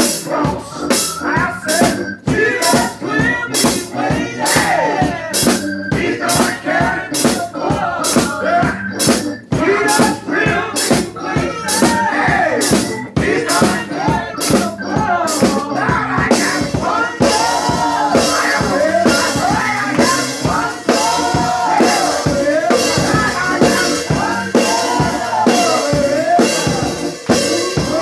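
Gospel song: a man singing lead into a microphone, his voice sliding and bending in pitch, over a steady drum beat of about two strokes a second.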